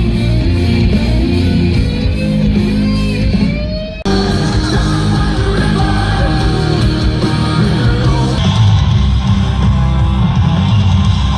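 Loud rock music with guitars and singing, cut off abruptly about four seconds in and replaced by a different passage.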